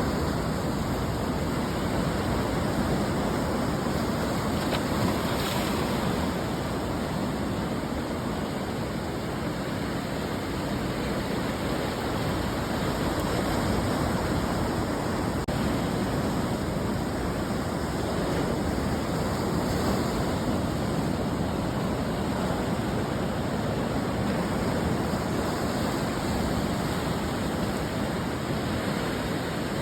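Ocean surf breaking on a beach: a continuous wash of waves, swelling and easing gently in loudness.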